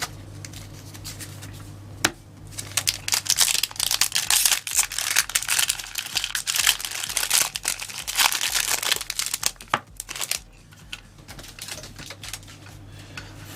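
A foil Yu-Gi-Oh booster pack being torn open and crinkled by hand: a sharp tick about two seconds in, then dense crinkling for about eight seconds before it dies down.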